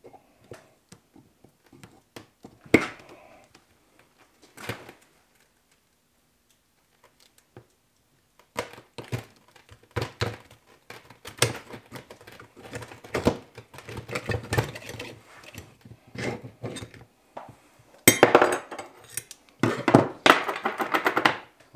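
Metallic clicks and clinks of snap-ring pliers and a large steel snap ring being worked off a tractor clutch part. There are a few scattered clicks at first, a brief lull, then frequent clinking with the loudest clatter near the end.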